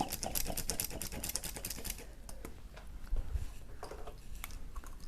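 Rapid clicking of a cupping set's hand suction pump drawing cups down onto the skin. The clicks are dense for about the first two seconds, then come in scattered single clicks.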